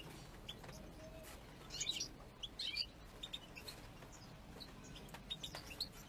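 European goldfinches chirping: a quick cluster of short, high calls about two seconds in, then scattered single notes.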